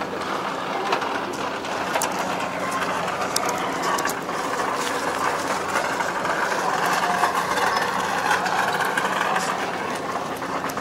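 An engine idling steadily, with a few scattered light clicks over it.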